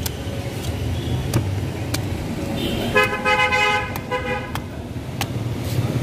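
Steady low road-traffic rumble with a vehicle horn honking for about a second and a half around the middle. A handful of short sharp cuts sound as a large curved knife slices the skin off a toddy palm fruit.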